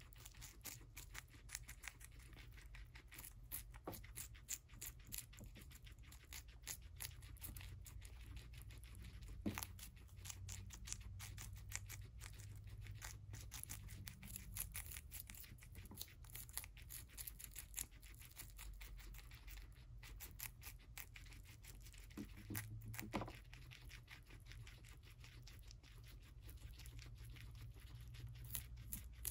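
Two guinea pigs chewing crisp celery stalks and leaves: quiet, rapid crunching and tearing bites, with a few sharper snaps.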